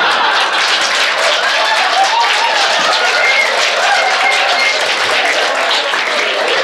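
Live audience applauding steadily, with some cheering voices over the clapping.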